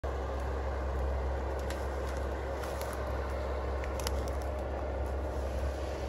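Engine of a distant forestry machine running steadily, a low rumble with a steady hum over it and a few faint clicks.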